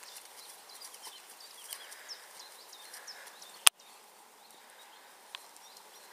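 Gypsy Cob horse walking on grass, its hoof footfalls soft and irregular, with small birds chirping in the background. A single sharp click a little past halfway is the loudest sound, and a smaller click comes near the end.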